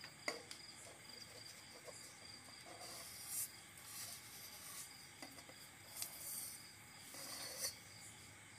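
Paper being pressed and smoothed into an aluminium cake tin by hand: faint rustling and crinkling in short bursts, with a few small taps against the tin.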